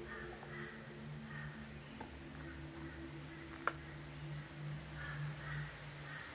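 Groenendael (Belgian Shepherd) dog gnawing and chewing a raw meaty bone, with soft, regularly repeating chewing sounds and one sharp click a little past the middle.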